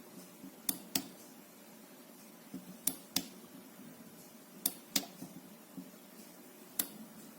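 Sharp light clicks, mostly in pairs about a third of a second apart, recurring every two seconds or so, over faint room noise.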